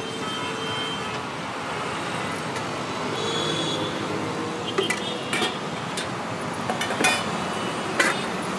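Steady road traffic noise, with a few sharp metallic clinks in the second half from a steel ladle and steel vessel lid at a food stall.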